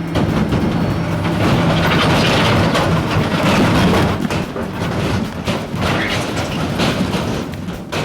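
A vehicle running: a loud, noisy rumble with repeated clacks that stops suddenly at the end.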